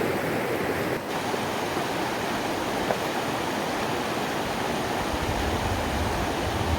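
River water flowing steadily, with a low rumble coming in about five seconds in.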